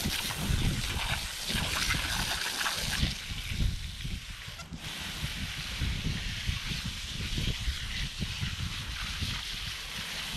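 Garden hose spray nozzle spraying water onto a pile of fresh mullet on concrete, a steady hiss of spray that cuts out very briefly about halfway through. Wind rumbles on the microphone underneath.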